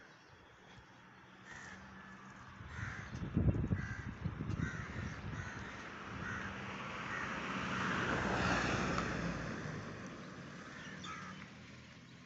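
Crows cawing in short calls now and then. A broad rush of noise swells up in the middle, loudest about eight seconds in, and fades away.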